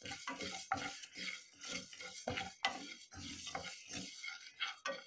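A spatula stirring red rice grains as they dry-roast in a granite-coated frying pan: quick, irregular scraping strokes with the grains rattling across the pan surface.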